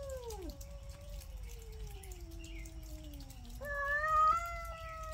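Cats yowling in a territorial standoff: long, drawn-out moaning calls that slide down in pitch. One call tails off about half a second in, a lower moan sinks slowly, and a louder yowl starts just before four seconds in and is held.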